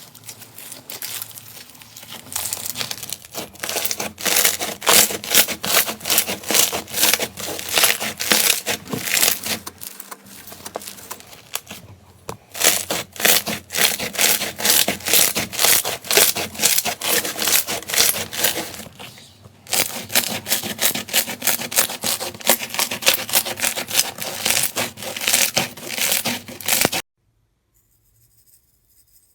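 Slime being squeezed and pressed by hand, giving a dense run of rapid crackling clicks and pops. It breaks off briefly twice and stops abruptly near the end.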